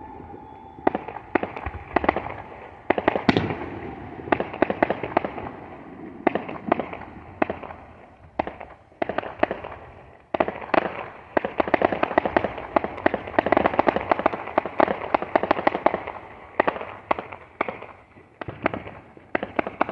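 Fireworks going off: rapid, near-continuous strings of sharp pops and cracks, starting about a second in, with a brief lull around ten seconds in.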